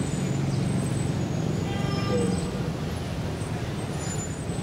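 Street traffic on a busy city avenue: a steady low rumble of passing vehicles.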